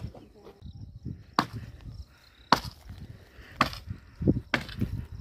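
A series of sharp chopping blows from a tool, about one a second, with a couple of duller thuds among the last strikes.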